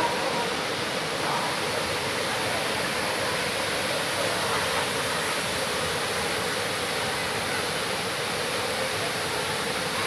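Looking Glass Falls, a waterfall pouring over a rock ledge into its plunge pool, making a steady, even rush of falling water.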